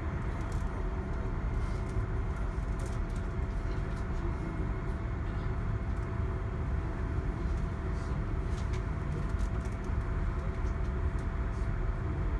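Steady low rumble of a passenger train running at speed, heard from inside the carriage, with a constant faint hum over it and a few light ticks and rattles.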